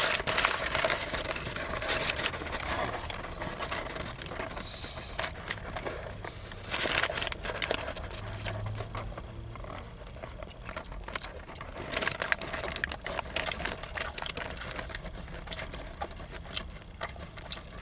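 Paper sandwich wrapper crinkling and rustling in irregular bursts as the sandwich is handled, loudest about seven seconds in.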